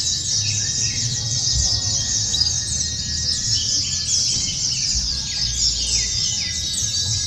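A chorus of white-eyes (pleci) singing all at once in a dense, unbroken chatter of high rapid chirps and trills, with a low rumble underneath.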